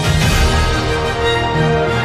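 Intro theme music with a bass line under held notes.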